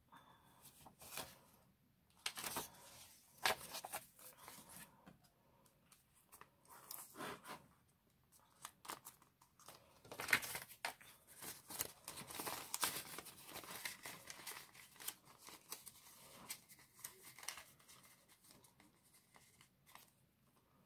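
Paper banknotes rustling and a clear plastic zip pouch crinkling as bills are handled and slid into the pouch in a ring binder. The sound is quiet and comes in short, scattered bursts of crackle and rustle.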